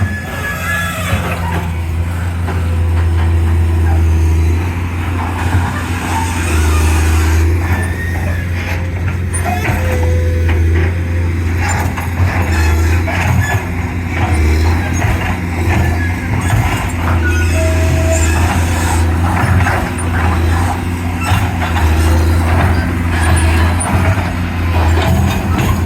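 An excavator's diesel engine running and working under load, its drone rising and falling, with scattered knocks and clanks throughout.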